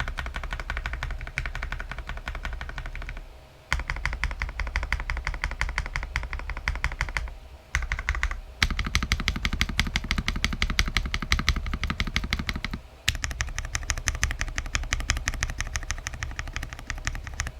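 Fast typing on an Akko 5075S VIA custom mechanical keyboard with hand-lubed Akko switches and a tape mod: a dense run of key clicks, breaking off briefly three times.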